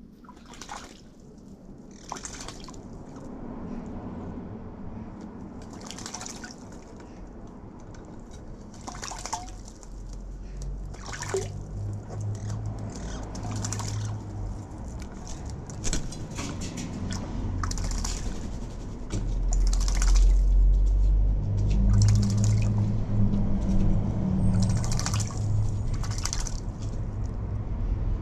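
Magpie bathing in a shallow water bowl: repeated short splashes of water every second or two. A low rumble builds underneath in the second half.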